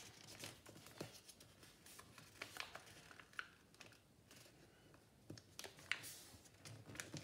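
Faint rustling and crinkling of a sheet of paper being folded and creased by hand, with scattered soft clicks as fingers press the fold down.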